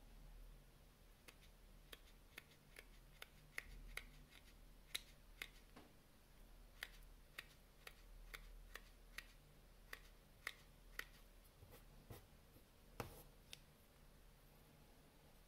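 Cuda Micro titanium fishing scissors snipping braided fishing line into short pieces: a run of quiet, crisp snips, about one or two a second, that stops a couple of seconds before the end.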